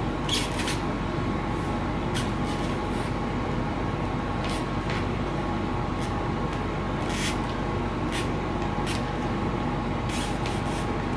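Steady background hum and hiss, with a few short soft rustles and clicks from hands handling the small parts of an aileron push-rod linkage on a foam wing.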